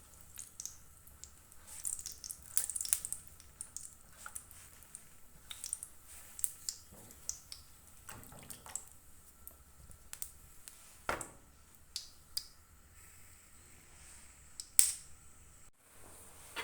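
Scattered light clicks and taps at irregular intervals, with two sharper clicks, one about two-thirds of the way through and the loudest near the end.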